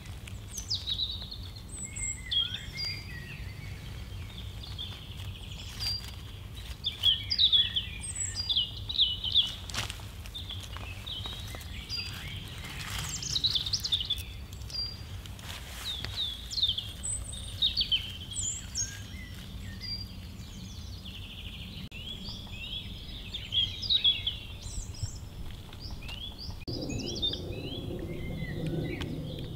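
Small songbirds chirping in many quick, falling calls over a steady low rumble, with a few sharp handling clicks. From near the end, water trickles out of a plastic-bottle water filter into a clay bowl.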